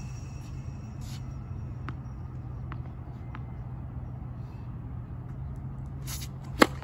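Tennis serve: one sharp pop of the racket strings striking the ball near the end, over a steady low background rumble, with a few faint taps earlier on.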